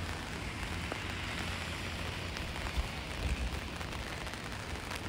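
Light rain falling, a steady hiss of drops with a few faint separate drop ticks, over a low rumble.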